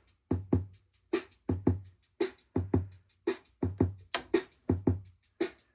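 Casiotone 401's built-in rhythm machine playing its slow rock beat: a steady pattern of short electronic drum hits, a low thump with a hissy cymbal-like tick, about three hits a second.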